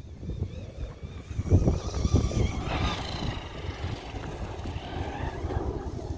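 Traxxas Rustler 4x4 VXL RC truck's brushless motor whining as it drives over grass, the pitch rising and falling with the throttle and climbing sharply about three seconds in, with wind buffeting the microphone.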